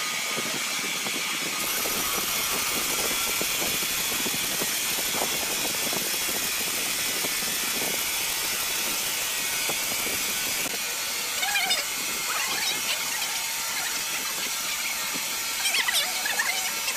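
Horizontal band sawmill running, its band blade cutting lengthwise through a large hardwood log: a steady machine noise. A few short, high squeaks come in the second half.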